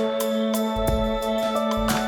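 Background music: calm new-age style instrumental with sustained keyboard notes over a steady beat.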